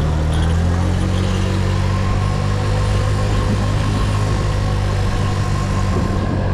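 Motorcycle engine running at a steady speed, heard from the rider's seat.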